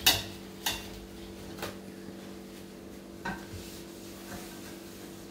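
Frying pan and kitchen utensils clinking and knocking on a gas hob as the pan is handled: four sharp knocks spread over the first three or so seconds, the first the loudest, over a steady low hum.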